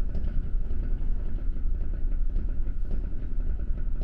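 Steady low rumble of the ferry Shimanto's engines, heard from inside the ship, with a few faint ticks over it.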